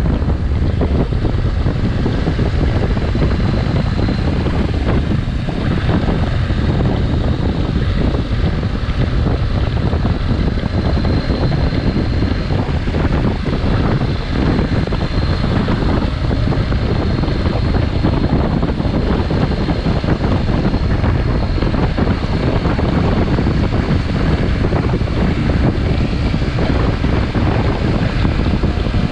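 Loud, steady wind rush on the microphone over the running engine of a motorcycle being ridden at speed, with a faint high whine coming and going.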